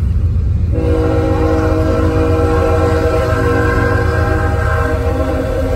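Train air horn sounding one long, steady, multi-note blast that starts about a second in, heard from inside a moving car over the car's low road rumble.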